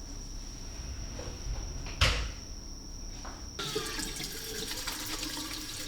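A sharp click about two seconds in, then water suddenly starts running in a small toilet room and keeps flowing. A faint high whine stops as the water starts.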